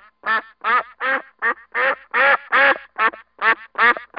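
Duck quacking in a rapid series, about a dozen quacks at roughly three a second.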